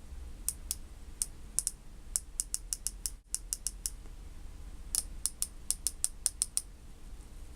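Rifle scope's coin-slot adjustment turret clicking as it is turned with a target knob. Crisp detent clicks come about four a second in two runs, with a pause of about a second between them.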